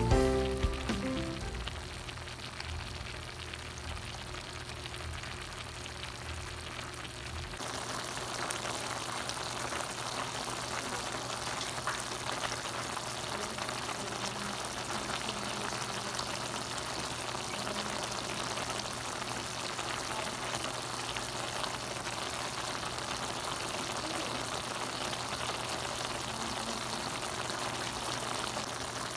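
Stir-fried vegetables simmering in sauce in a pan: a steady crackling sizzle that sets in about a quarter of the way in, after a quieter stretch with a low hum. Background music fades out at the very start.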